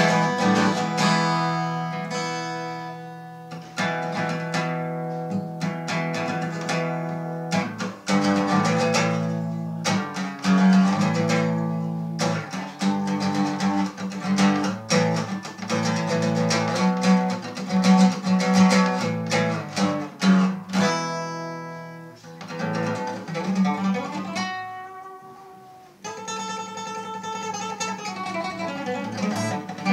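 Solo cutaway acoustic guitar played fingerstyle, chords picked and strummed with sharp strokes. About three-quarters through the chords ring out and fade, then a softer passage begins.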